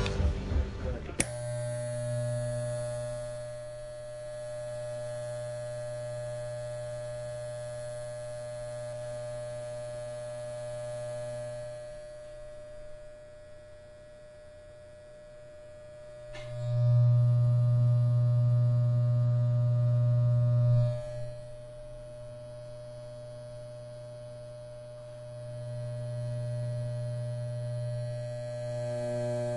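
Electric hair clippers buzzing, switched on about a second in. The buzz holds steady, swells much louder for a few seconds in the middle, drops back, and rises again near the end.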